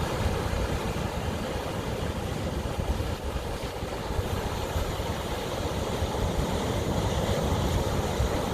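Ocean surf: a steady wash of waves with a continuous low rumble.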